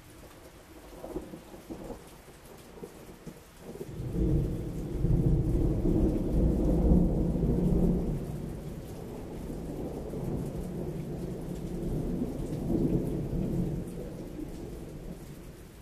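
Thunder: a couple of brief low rumbles, then a long, loud, deep rumble from about four seconds in that swells again later and fades near the end. Steady rain falls underneath.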